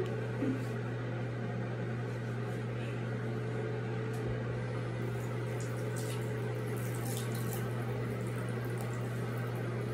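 A steady background noise, an even hiss over a constant low hum, kept running for comfort, with a few faint light rustles in the second half.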